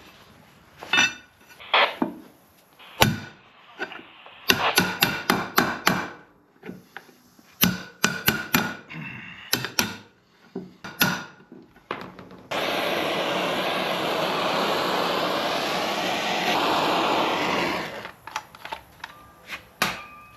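Workshop tools at work: a series of sharp knocks and taps, some in quick runs. Then a steady rushing hiss lasts about five seconds, followed by a few more light taps.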